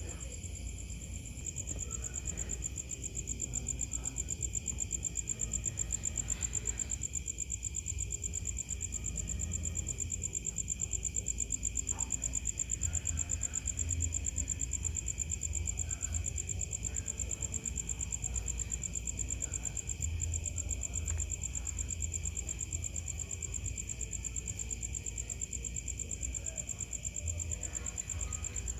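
Night insects, crickets, trilling steadily in a high continuous tone, over a low rumble.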